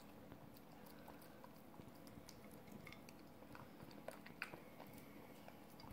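A corgi faintly licking and chewing at food on a plate: soft, scattered wet clicks and taps, a few slightly louder about four and a half seconds in.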